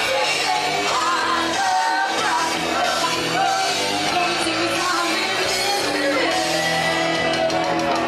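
Music with singing, with some shouting from the crowd.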